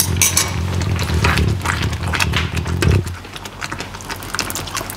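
Thick risotto simmering in a frying pan, with quick bubbling pops and the scrape of a silicone spatula, over a steady low hum that cuts off about three seconds in. Near the end, liquid is poured into the pan as it is stirred.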